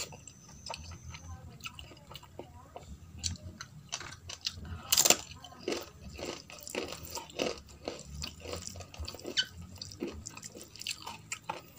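Close-up eating sounds of rice and dal eaten by hand: wet chewing and lip smacks as a steady run of short clicks, with one louder sound about five seconds in.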